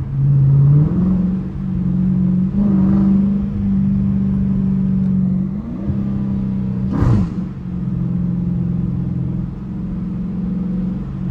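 Dodge Challenger's HEMI V8 running under light throttle while cruising, heard from inside the cabin: a steady exhaust drone that steps up in pitch a few times. There is a brief louder burst about seven seconds in.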